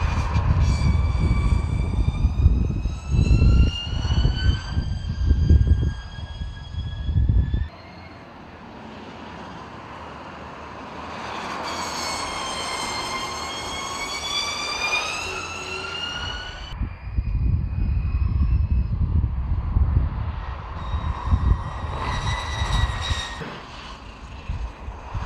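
Hyundai Veloster N ETCR electric race car at speed: its mid-mounted electric motor whines in several tones that rise in pitch as it accelerates, over a low rumble of tyres and wind when it passes close. The sound changes abruptly about 8 and 17 seconds in, with a quieter, higher whine in between.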